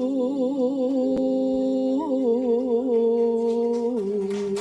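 A woman singing long held notes in Javanese sinden style into a microphone, her voice wavering in a wide vibrato. The pitch steps down about four seconds in.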